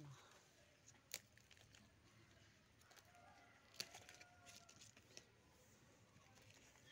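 Near silence, with a few faint sharp clicks from the plant and pot being handled.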